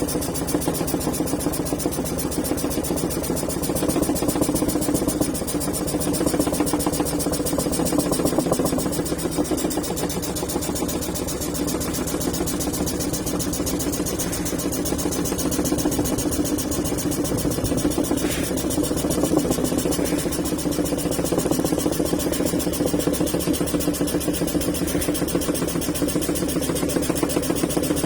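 Scroll saw running steadily, its blade stroking rapidly up and down as it cuts a curve through solid heartwood.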